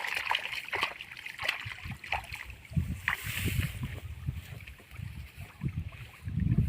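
Irregular splashing and sloshing of shallow water, broken by scattered clicks and knocks, with low rumbling bursts growing stronger near the end.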